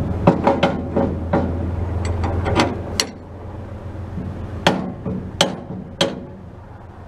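Steel pintle hitch being worked by hand, freshly greased and moving freely: a quick run of sharp metal clacks and clicks, then three more spaced out near the end. A low hum stops about three seconds in.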